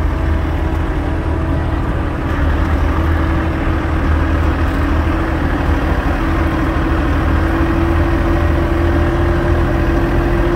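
Sherp amphibious ATV's diesel engine running steadily as it drives, with a steady whine that creeps slightly higher in pitch toward the end.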